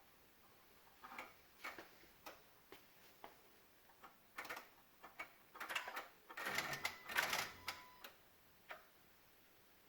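2016 Honda Odyssey clicking from the area of the engine computer (PCM) and VSA control module with the engine turned off. The sharp clicks come about every half second at first, then faster and louder in the middle, with one more near the end. This clicking goes with the engine, VSA, LDW and FCW warning lights being on.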